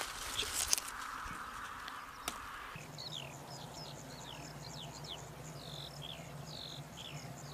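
Songbirds chirping outdoors: a run of short, quick, falling chirps begins about three seconds in, over a low steady hum. Before that there is a soft hiss with a few light clicks.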